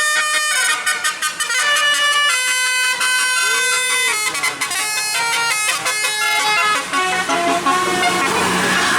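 A bus's telolet musical horn of the basuri type playing a quick tune, jumping from note to note every fraction of a second. Near the end the tune gives way to a rising rush of engine and road noise.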